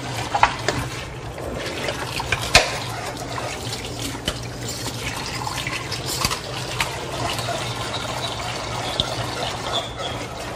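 A utensil stirring in a metal cooking pot, with scattered sharp clinks against the pot. Under it runs a steady watery hiss and a low hum.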